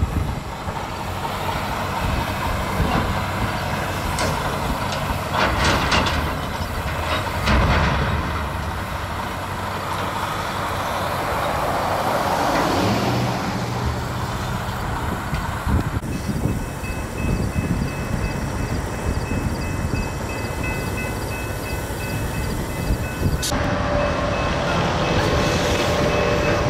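Heavy diesel excavators working on derailed container cars: engines running under steady noise, with scraping and clanking of metal, loudest about five to eight seconds in.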